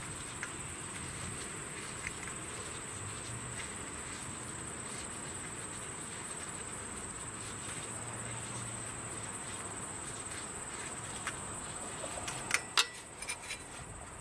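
Insects chirring steadily in a continuous high tone. Near the end come a few sharp clicks or knocks, the loudest sounds.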